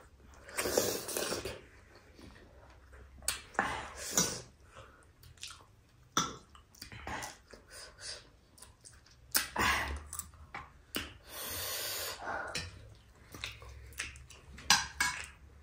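Close-miked eating sounds of a person chewing food, in irregular short bursts, from a mukbang of noodles and momo.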